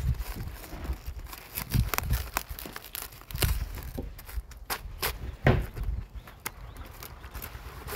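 A kitchen knife cutting through heads of napa cabbage, the crisp leaves cracking and crunching in short irregular snaps, over a low rumble.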